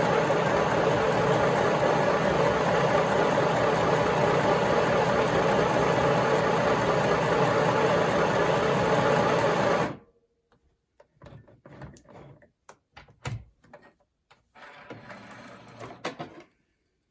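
Small electric midi sewing machine stitching at a steady full speed, run from a foot pedal that works only fully on or off. It stops abruptly about ten seconds in, followed by a few light clicks and handling noises.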